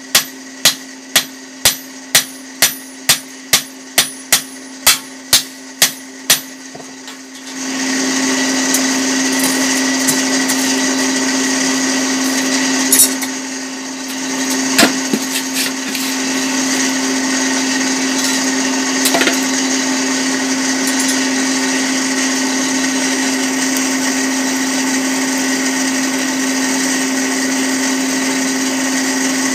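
Blacksmith's hammer beating the edge of a red-hot fodder-chopper blade, regular blows about one and a half to two a second, over the steady hum of an electric forge blower. About seven seconds in the hammering stops and an electric grinder starts and runs steadily for the rest of the time, with a few sharp clicks midway.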